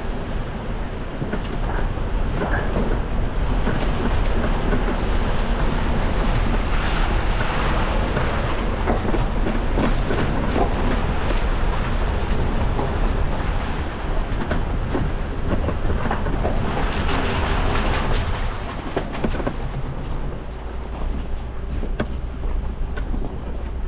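Four-wheel-drive vehicle driving over a rough, wet tunnel floor: steady engine and tyre rumble with a stream of small rattles and crunches, echoing inside the tunnel. The sound drops a little about twenty seconds in as the vehicle comes out onto an open gravel track.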